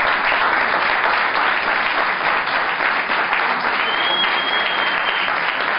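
Audience applauding, dense and steady, with a thin high whistle held for about a second near the end.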